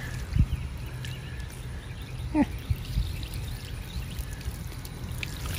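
A stream of water poured onto a cloth convertible top, splashing and running off the fabric. It is a water-repellency test of the year-old fabric protectant on the top.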